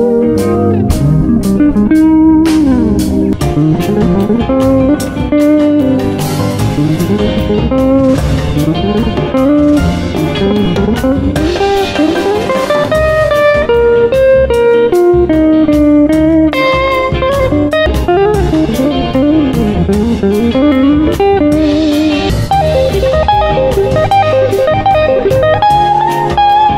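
Electric guitar playing a blues lead with frequent string bends and slides, over a backing with bass and drums.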